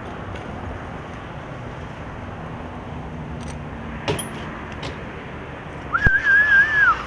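A person whistling one held note, about a second long near the end, sliding up at the start, wavering slightly and dropping away at the end. Before it there are a few faint clicks over a steady outdoor background.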